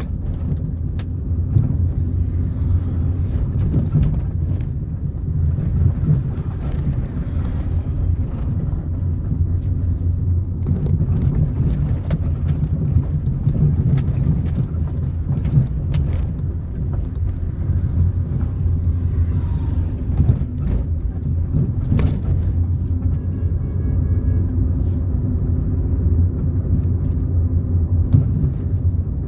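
A car driving along a road: a steady low rumble of engine and tyres, with a few short knocks from the road surface, the sharpest about 22 seconds in.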